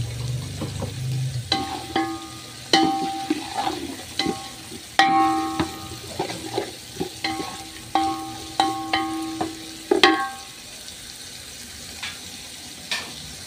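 A wooden spoon stirring capsicum and onions frying in oil in a large metal pot. The spoon knocks repeatedly against the pot, which rings with a clear tone at each stroke. The knocking stops at about ten seconds, leaving a soft frying sizzle.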